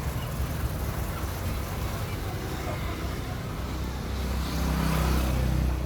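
Small electric monoblock water pump running with a steady low hum, growing louder about four and a half seconds in.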